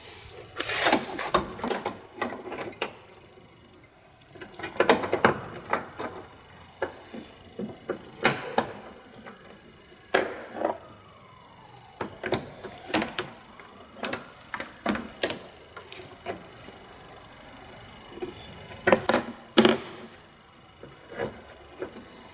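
Metal spanners clinking, knocking and scraping on a stuck wiper spindle nut, in scattered bursts with short pauses between.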